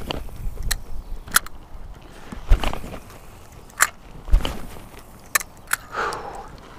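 Sharp clicks and crackles at irregular intervals, with a few dull thumps: an angler's footsteps and movement on dry, leaf-strewn ground while he casts and reels a spinning rod.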